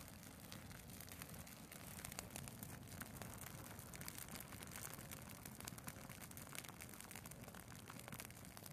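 Faint, irregular crackling and ticking of a dried Christmas tree's needles and twigs burning down, the crackles thickest in the middle, over a steady low rumble.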